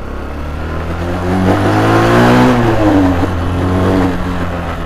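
TMEC Enduro 125 motorcycle's single-cylinder engine accelerating under way, its note rising for about two and a half seconds and then dropping back, with wind noise swelling at the loudest point.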